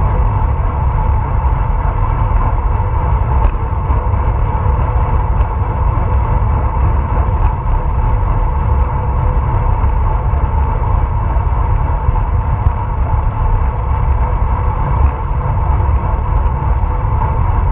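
Steady wind rush and buffeting on a bike-mounted action camera's microphone while a bicycle rides at speed, under a steady mechanical hum from the tyres and drivetrain.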